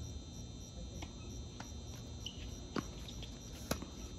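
Tennis rally on a hard court: a ball is struck by racquets and bounces, giving four sharp knocks about a second apart, the last two the loudest. Underneath runs a steady high background drone.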